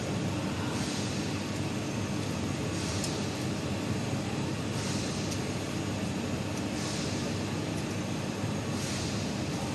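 Tyre-building machine winding rubber onto a giant OTR tyre blank, running with a steady low hum. A soft hiss comes and goes about every two seconds.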